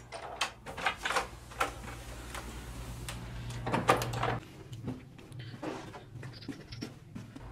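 A door being opened and shut, among footsteps and knocks from the phone being handled while walking. A steady low hum cuts off suddenly about four and a half seconds in.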